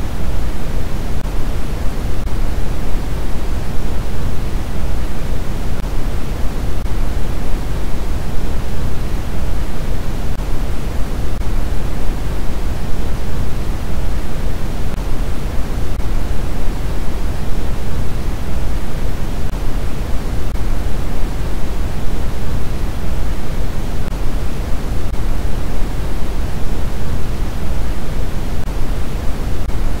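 Steady electronically generated white-noise track: a constant rushing hiss, heavier in the low end than at the top, with no changes or breaks.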